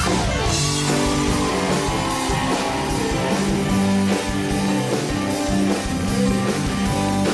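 Upbeat band music with guitar and drum kit playing steadily.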